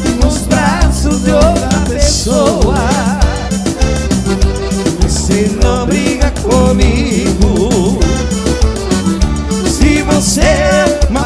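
A live dance band plays a melody over bass and drums with a steady beat.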